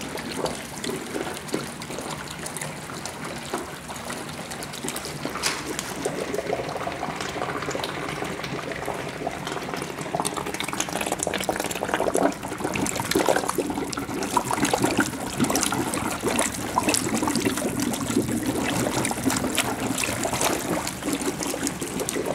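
Hydrogen-oxygen (HHO) gas from an electrolysis generator bubbling steadily through water out of a hose, a dense fizzing and gurgling full of small pops.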